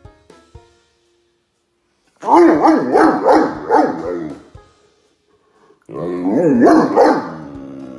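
Great Dane vocalizing in two long, wavering howl-like moans, the first beginning about two seconds in and the second near the end, its pitch sliding up and down throughout.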